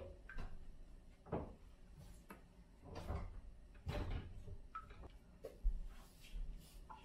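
Light knocks and clicks of a kitchen cabinet being opened and jars and containers being handled on its shelves, one short sound about every second.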